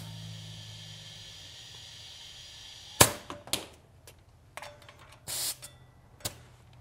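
Compressed air hissing steadily through the compressor hose's chuck on the valve stem, inflating a tubeless motorcycle front tire to its 36 psi maximum to seat the bead. About three seconds in the hiss stops with a sharp click, followed by a few lighter clicks and a brief hiss of air.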